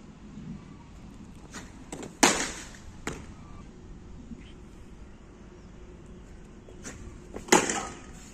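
Cricket bat striking the ball twice, about five seconds apart, each a sharp crack with a short ringing tail. A fainter tap comes just before each hit.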